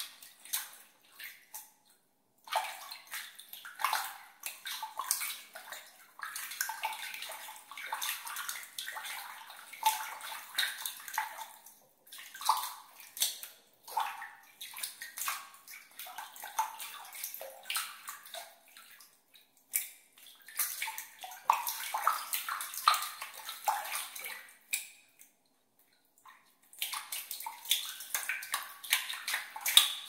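Water being splashed and swished by hand in a container, in irregular clusters of small splashes and trickles with a few short pauses.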